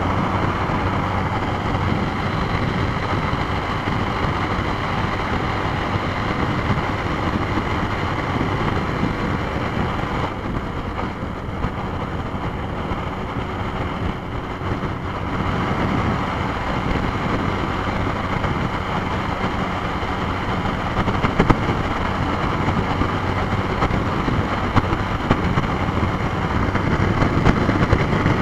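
Yamaha Fazer YS 250's single-cylinder engine running at highway speed through its stock exhaust, with wind rush on the microphone.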